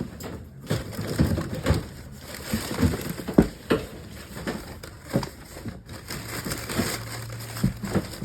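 Rummaging through a storage tote: items knocking and clattering against each other at irregular intervals, with rustling as things are shifted about.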